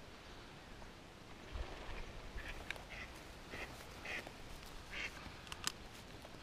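Ducks quacking: a run of about six short quacks from about a second and a half in, with a couple of sharp clicks near the end.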